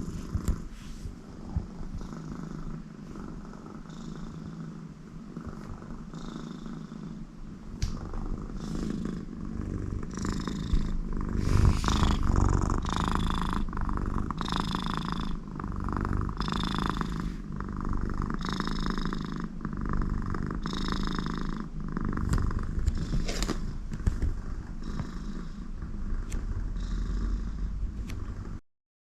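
An American Shorthair cat purring steadily, with a snore-like sound through its nose on each breath. The nasal sounds come about every two seconds and grow stronger from about eight seconds in. This is the sound of a very contented cat.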